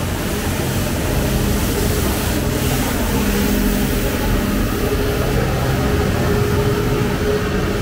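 Street sweeper running steadily: a loud engine hum with a constant rush of noise over it.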